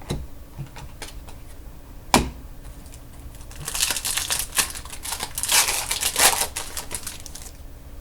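Trading cards being handled and flipped through by hand: a single sharp click about two seconds in, then a few seconds of quick, rapid clicking and rustling as the cards slide against each other.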